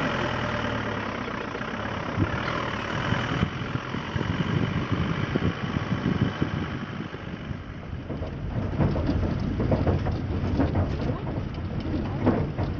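Engine of a crowded passenger vehicle heard from inside the cabin as it drives up a badly broken uphill road. A steady engine drone runs throughout, and from about halfway on it is joined by frequent irregular knocks and rattles as the vehicle jolts over the rough surface.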